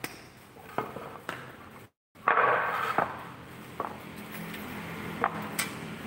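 Wooden planks and metal parts being handled and set down on a concrete floor: a string of sharp knocks, with a brief scraping slide about two and a half seconds in.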